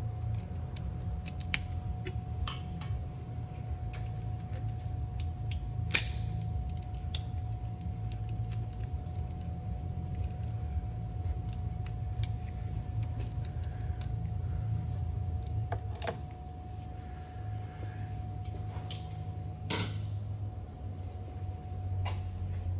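Scattered light clicks and handling noises of parts and hand tools, with sharper knocks about six seconds in, near the middle and near the end, over a steady low hum and a faint steady tone.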